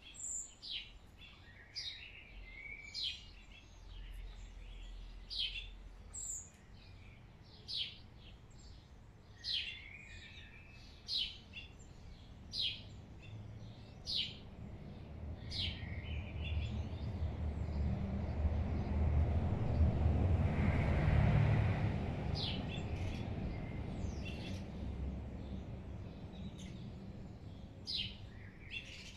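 A sparrow chirping: single short chirps repeated about every one and a half seconds. A low rumble swells to its loudest about two-thirds of the way through, then fades.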